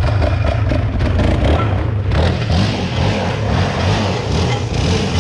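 ATV engine revving close by, its pitch rising and falling with the throttle and getting rougher and louder about two seconds in.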